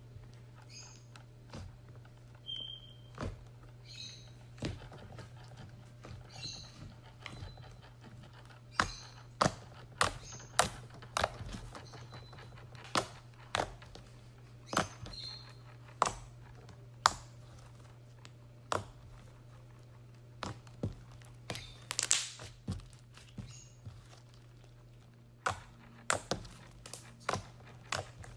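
Thick slime being poked, squeezed and kneaded by hand: irregular sharp pops and clicks from trapped air, a few with a short squeak, over a faint steady low hum.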